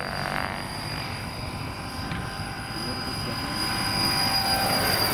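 Electric-powered scale model tandem-rotor helicopter (Boeing Vertol CH-113 Labrador) flying: twin rotors beating with a steady high whine, growing louder about three and a half seconds in.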